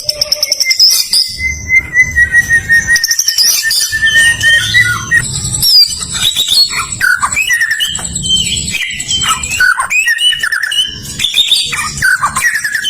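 White-rumped shama singing a varied song of rapid whistles and trills, with a long, slowly falling whistle over the first few seconds. Background music with a low pulsing beat runs underneath.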